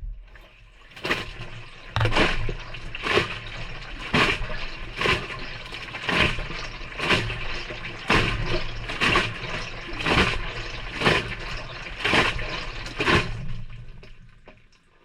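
Maytag front-loading washer on its delicate cycle, heard from inside the drum: the motor starts and the drum turns, the wet load splashing and dropping into the water about once a second with a low motor hum. Near the end the tumbling slows and fades as the drum stops.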